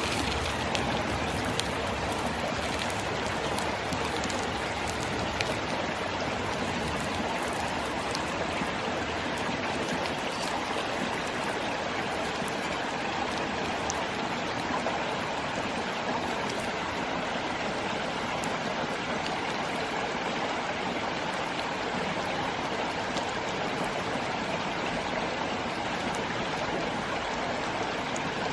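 Mountain stream flowing with a steady rushing babble, a few faint clicks on top.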